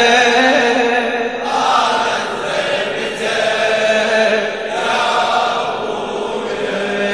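A large crowd of men chanting an Arabic Shia mourning refrain (latmiya) in unison, holding long notes on the words of the chorus.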